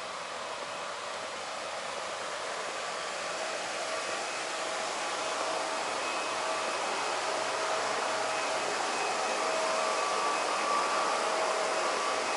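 Water running steadily from a pool or water-play fountain, an even rushing hiss that grows slowly louder, with a faint steady hum mixed in.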